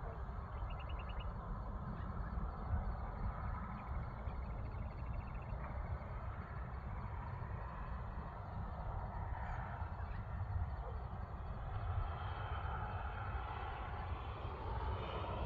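Outdoor hilltop ambience: a steady low rumble of wind buffeting the microphone, with two short, rapid high bird trills, one about half a second in and another around four seconds in. A distant engine drone swells toward the end.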